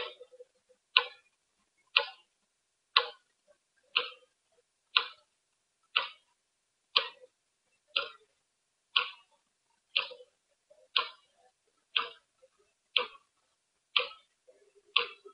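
Clock ticking steadily at one tick a second, each tick a sharp click with dead silence between them.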